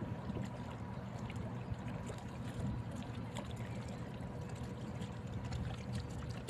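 A low steady rumble with water splashing and trickling, and scattered small ticks.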